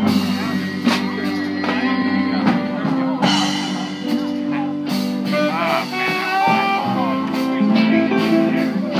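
Small live band playing an instrumental passage of a slow ballad: guitars and keyboard with sustained melody notes over regular hand-drum strokes.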